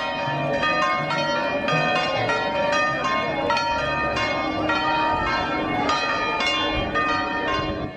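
Church bells pealing: many strikes in quick succession, each tone ringing on and overlapping the next.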